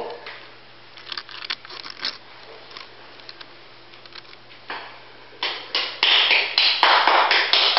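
A cat's paws and claws tapping and scrabbling against a glass shower screen: scattered light clicks at first, then louder, denser scrabbling and rushing noise in the last couple of seconds.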